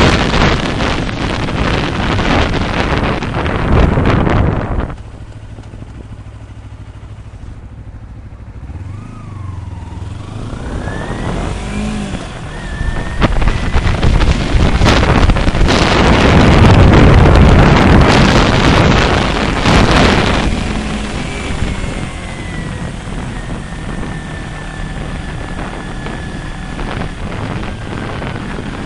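Motorcycle riding with heavy wind rush on the microphone. About five seconds in, the wind suddenly drops away as the bike slows, leaving the engine running low and steady. The engine then pulls away with rising revs, and the wind comes back loud past the middle, easing off somewhat near the end.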